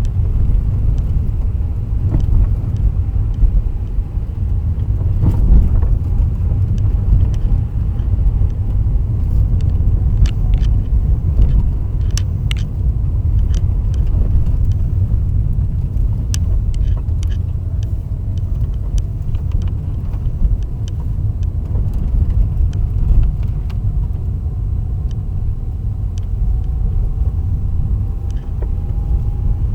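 Lada Kalina driving, with a steady low road rumble and now and then sharp knocks from the suspension, several close together about a third of the way in and more after the middle.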